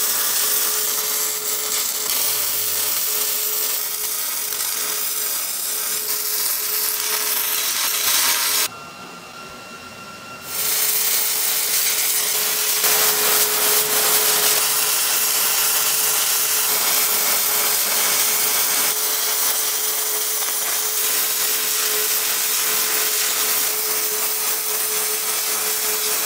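Wire-feed (MIG) welding arc sizzling steadily as seams on a steel-plate smoker firebox are welded; the arc stops for about two seconds roughly nine seconds in, then starts again.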